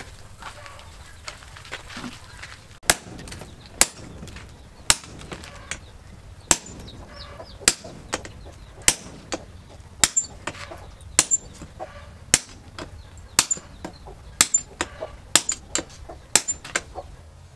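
Hammer blows on red-hot axle steel on an anvil during hand forging: sharp metal-on-metal strikes starting about three seconds in, a heavy blow roughly once a second with lighter taps between.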